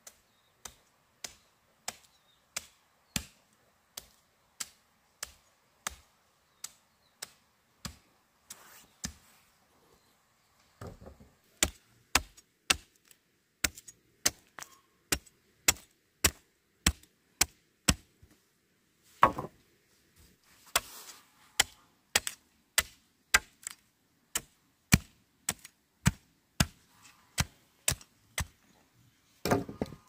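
Steady chopping with a blade: sharp strikes about one and a half a second, turning louder and quicker, about two a second, after some eleven seconds, with a heavier blow about two-thirds of the way through and another near the end.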